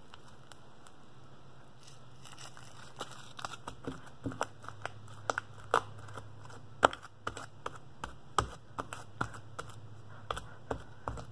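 Heavy slime being squeezed, stretched and folded by hand, giving irregular sticky clicks and pops. They start about two seconds in and come thick and fast.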